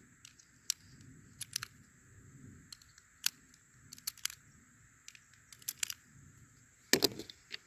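A few scattered, sharp metallic clicks at irregular intervals, typical of .380 ACP cartridges being pressed one by one into a small pistol magazine, with one louder click near the end.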